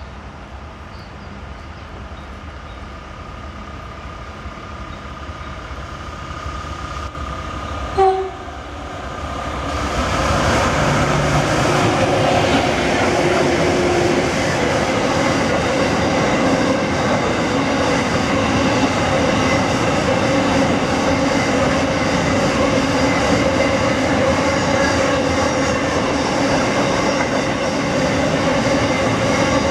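A coal train hauled by two diesel locomotives approaches, the engines growing louder, with a short horn blast about eight seconds in. The locomotives then pass close by and a long line of coal wagons rolls past with steady wheel and rail noise.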